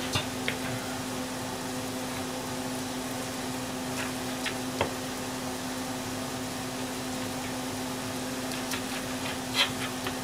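Kitchen knife cutting raw chicken on a plastic cutting board, the blade tapping the board a few scattered times, over a steady low hum.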